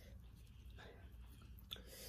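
Near silence: faint room hum, with one small click a little before the end.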